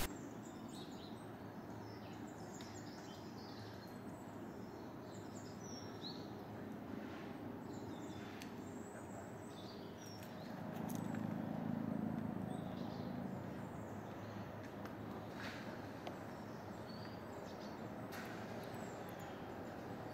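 Quiet outdoor ambience: small birds chirping and calling on and off over a steady background hush, with a low rumble swelling for a few seconds midway.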